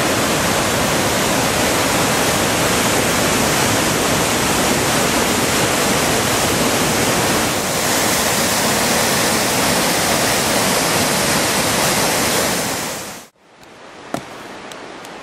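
Whitewater river rapids rushing loudly and steadily over rocks. About thirteen seconds in the water sound cuts off abruptly, leaving a quiet background with a single click.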